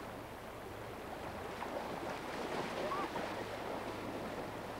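Shallow creek water rushing and splashing as several people wade through it in waders, a steady wash of water noise with faint voices in the distance.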